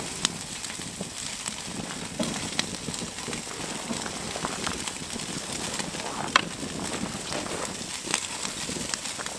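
Slices of Spam sizzling on a grill grate over a wood campfire, a steady hiss with a handful of sharp crackles and pops from the fire, the loudest about six seconds in.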